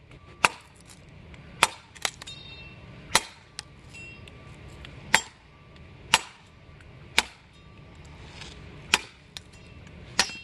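Machete blade chopping into wood, about ten sharp strikes roughly a second apart and unevenly spaced, swung with a loose wrist-action grip. A few strikes leave a brief metallic ring.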